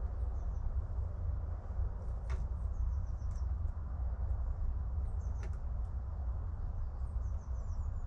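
Steady low hum with a few faint, light clicks of a mountain-bike chain guide and its bolts being handled and fitted at the crank.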